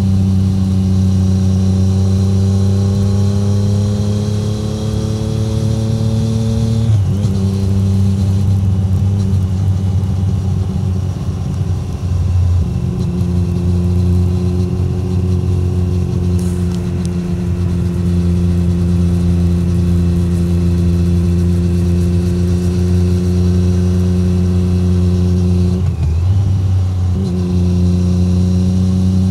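A 2017 Triumph Street Triple 765R's inline three-cylinder engine runs through an SC Project SC1-R titanium exhaust at steady, fairly low revs while cruising. Its note rises gently, and it breaks off briefly twice: about seven seconds in and near the end.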